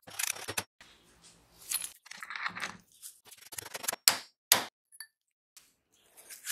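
Metal clinks and scrapes as a metal axle shaft is worked through the sealed ball bearing of a wheel hub, with two sharp clinks about four seconds in and a short metallic ring just after.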